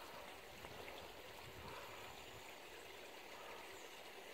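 Faint, steady rush of a small creek's running water, with nothing else standing out.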